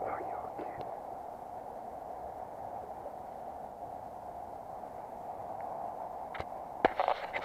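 Steady rush of a small, shallow river's running water. A few sharp clicks of handling come near the end.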